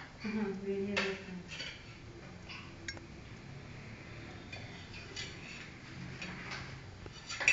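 Light clinks of a spoon or other cutlery against a plate during a meal, a few separate clinks spread over several seconds.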